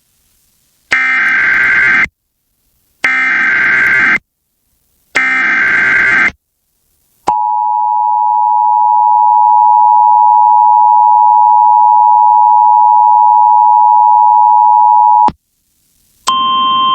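Emergency Alert System (EAS) signal: three one-second bursts of the SAME digital header, a harsh buzzing data screech, then the steady two-tone attention signal (853 and 960 Hz together) held for about eight seconds before cutting off. This marks the start of a broadcast emergency alert, here a tornado watch.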